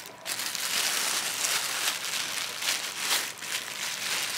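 Clear plastic bag crinkling and rustling as it is worked off a roller skate.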